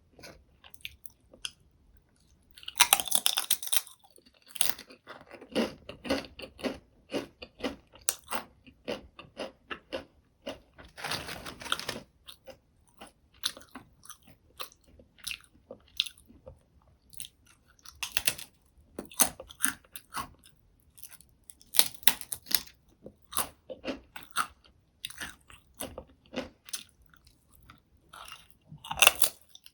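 Close-miked crunching and chewing of salty potato chips: a steady run of crisp, irregular crunches, with louder bursts about three seconds in, around eleven seconds, and near the end that are likely fresh bites.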